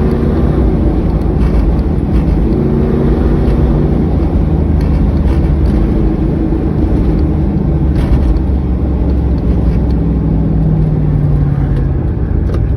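Vehicle engine running with a steady drone whose pitch drifts up and down a little, after a bad fuel injector has been replaced.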